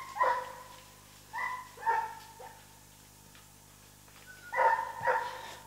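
Hunting hound barking in short, clear barks: a pair near the start, two or three about two seconds in, and a pair near the end.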